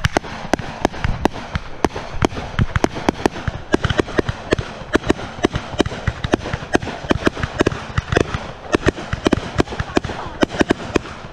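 A close-range barrage of consumer aerial fireworks: shots launching and shells bursting in rapid succession, about five sharp bangs a second over constant crackle, until the barrage stops at the very end.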